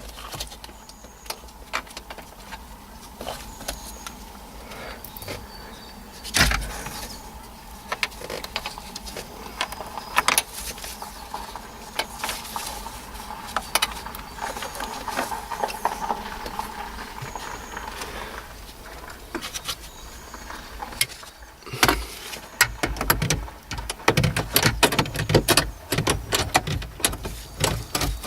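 Scattered clicks and knocks of hands and a tool working at small metal bolts and plastic trim in a car dashboard, with one sharper knock about six seconds in and a busier run of clicking and thumping near the end.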